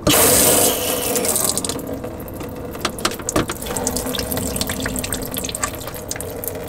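Water gushing and splashing from an RV's hot and cold low-point drain valves as they are opened to drain the plumbing lines. It starts suddenly and is strongest for the first second or so, then settles into a steady pour.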